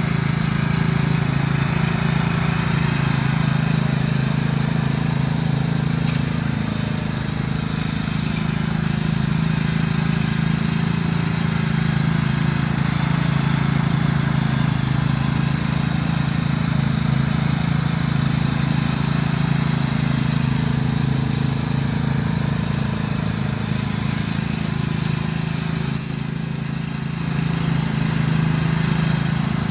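Cub Cadet CC30H rear-engine riding mower running steadily under load while mowing and bagging leaves, with a brief dip in level near the end.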